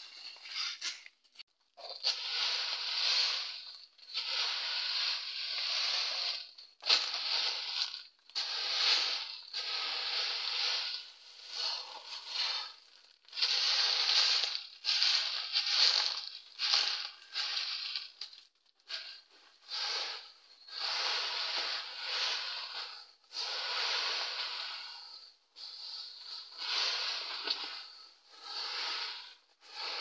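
Dry legume pods crunching and rustling on a tarp as they are threshed, in repeated bursts about every second or two.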